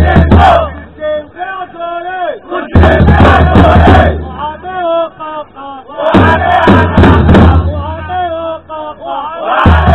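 Football ultras' call-and-response chant: a leader sings a line through a microphone and loudspeaker, and the crowd answers with a loud shout in unison over drum beats, roughly every three seconds.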